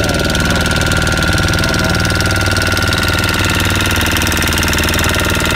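Small motor boat's engine running steadily with a fast, even firing beat and a thin steady high whine over it.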